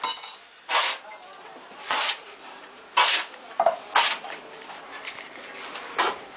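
A metal tool scraping in short, separate strokes, about one a second.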